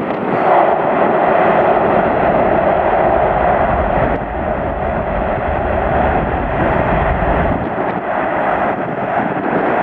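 Boeing 747-400 freighter's four GE CF6-80C2 turbofan engines running loud and steady, with a deep low rumble added for a few seconds in the middle.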